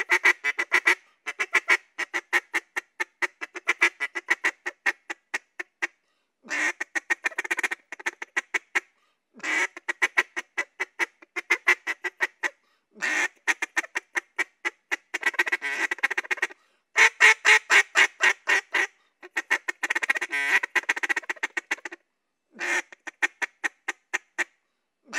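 Duck call blown in a feed call: rapid runs of short clucking notes a second or two long, broken by brief pauses.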